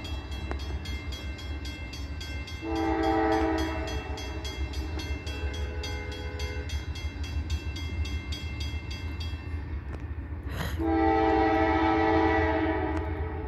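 Freight locomotive horn sounding for a grade crossing from the approaching train's lead GE CW44AC: a loud blast about three seconds in, a quieter blast a couple of seconds later, then a long loud blast starting near the end. Under it a crossing signal bell dings about four times a second and stops about nine seconds in, over a steady low rumble.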